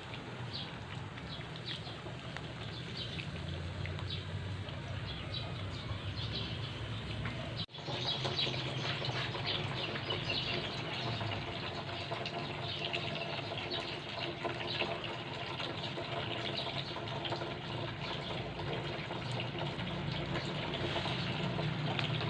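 Whole eggplants sizzling over a charcoal fire, a steady hiss with many fine crackles and pops. The sound drops out for an instant about eight seconds in.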